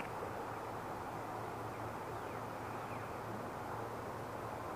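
Steady outdoor background noise with an even low hum beneath it and a few faint high chirps.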